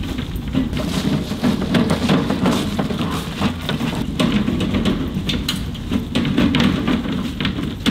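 Footsteps crunching through a thick layer of dry fallen leaves: a steady run of irregular crackles and rustles, with a low rumble underneath.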